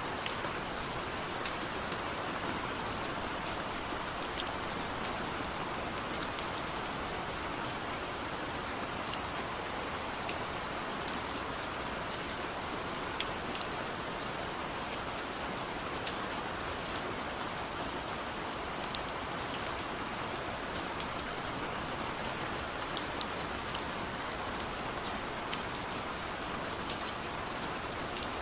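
Steady rain, an even hiss with many scattered sharp ticks of single drops striking a surface.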